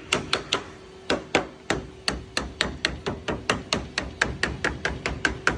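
A lead beater tapping rapidly on heated Code 8 sheet lead, dressing a pig's-ear internal corner round a corner tool to keep it square. Light, even blows at about four a second.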